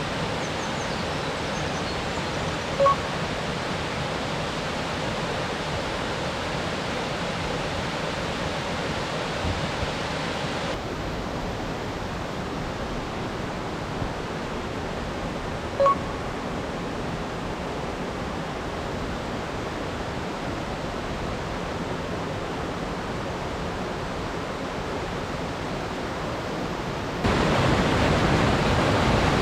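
Waterfall, a straight drop of about 60 m, giving a steady rush of falling water. Its level drops abruptly about a third of the way in and jumps up louder near the end. Two brief high peeps, one early and one about halfway, sound over it.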